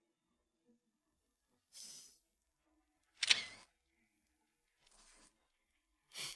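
Camera shutter clicks, a few short ones with near silence between them; the loudest comes about three seconds in.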